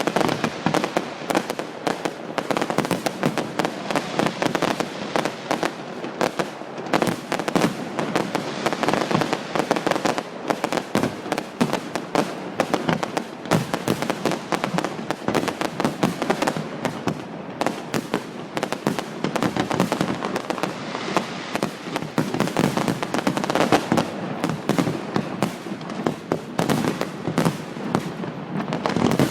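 Fireworks display going off in a continuous, rapid barrage of bangs and crackles, with no pause.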